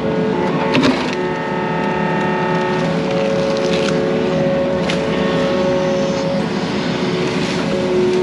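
Yanmar mini excavator running under load, its diesel engine steady under a hydraulic whine that shifts in pitch as the controls move, with a few sharp knocks and cracks as it works at clearing trees.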